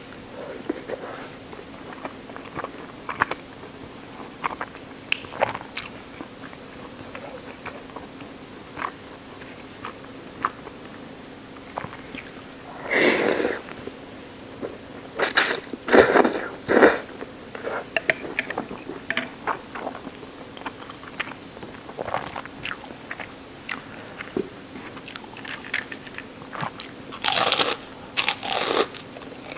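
Close-miked eating of ramen: steady chewing with small wet clicks, broken by loud slurps of noodles about thirteen seconds in, a few more around sixteen seconds, and another cluster of loud mouth noises near the end.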